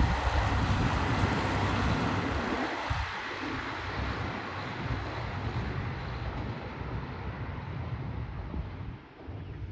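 Diesel sightseeing train passing close by and moving away, the rumble of its engines and wheels on the rails loudest at first and fading steadily over about nine seconds.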